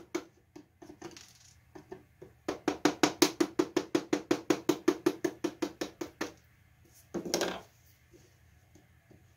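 A steel chisel trimming walnut plugs flush on a mahogany door frame: quick runs of light, sharp taps, about five a second, as the plug tops are worked off along the grain. A short scrape follows about seven seconds in.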